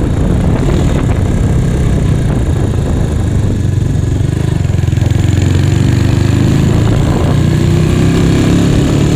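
Yamaha Mio scooter fitted with a Honda Megapro single-cylinder four-stroke engine, running steadily as it rides along, its note rising a little over the last couple of seconds.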